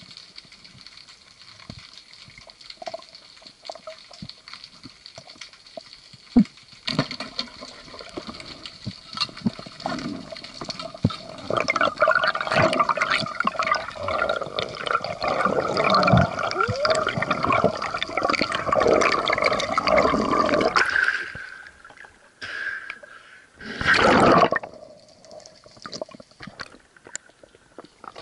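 Rushing, bubbling water heard through an underwater camera as a free diver moves, loudest through the middle and cutting off suddenly, with one short burst of rushing water near the end.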